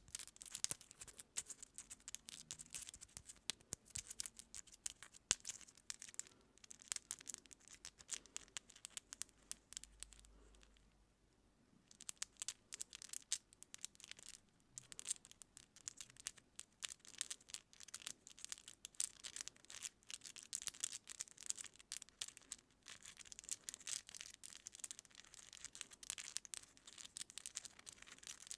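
Long acrylic fingernails and thin wooden picks scratching and picking through hair and at the scalp close to the microphone: a fast, dense run of crisp, high scratchy crackles that stops for about a second and a half partway through.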